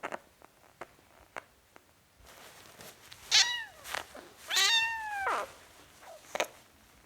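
Four-week-old kitten meowing twice: a short mew that falls in pitch about three seconds in, then a longer falling mew just after. Light scattered taps and clicks come before and after the mews.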